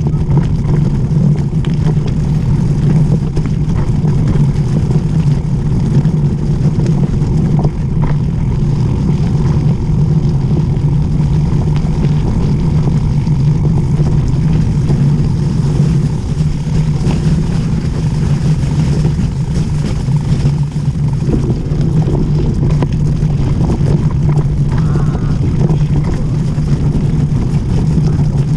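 Wind rushing over an action camera's microphone, mixed with the rumble of mountain-bike tyres rolling fast over a slushy, snow-patched dirt road. It is a steady, unbroken noise.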